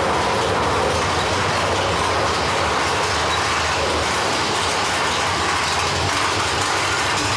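Big Thunder Mountain Railroad mine-train roller coaster rolling along its track at steady speed, with the wheels giving a continuous rumble and clatter.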